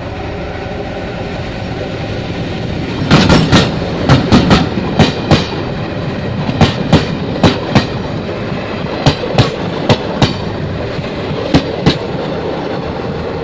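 Utsarg Express passing close by on the rails, with a steady rumble. From about three seconds in, its wheels clack sharply in quick pairs, over and over.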